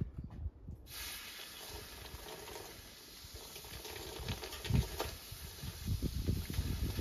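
Water poured onto a steel pin still hot from a thermal lance, hissing steadily as it flashes to steam, beginning about a second in. The quench cools the pin so that it shrinks and breaks free of the rust holding it.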